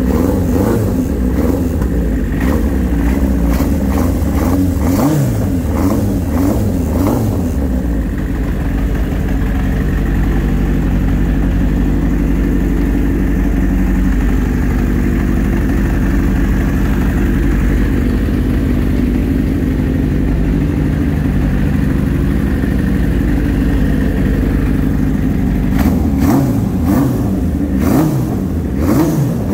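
Engine of a 1981 Moto Martin motorcycle running just after its first start in seven years, freshly serviced with cleaned carburettors. It is blipped up and down repeatedly for the first several seconds, settles to a steady idle, then is revved in short blips again near the end.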